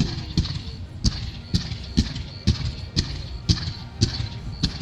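Aerial fireworks going off in quick succession: about two to three sharp bangs a second, with crackling between the bursts.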